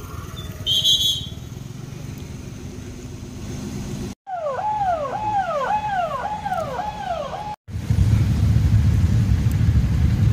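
Road traffic noise with a short shrill whistle-like tone about a second in. After a cut, a repeating tone rises and falls about twice a second for some three seconds. After a second cut, the louder low rumble of a motorcycle ride.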